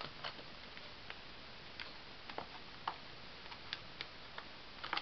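Faint, scattered clicks and light rustles of paper card as hands handle a card envelope, tucking in the cards and folding the flap shut.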